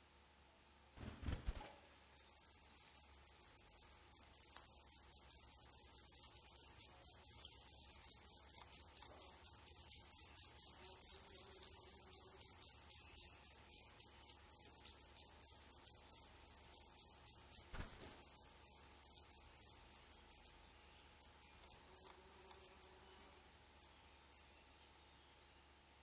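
Black redstart nestlings begging in the nest: a long, rapid run of high, thin calls, several a second, thinning out into scattered calls near the end. A short thump comes just before the calling starts.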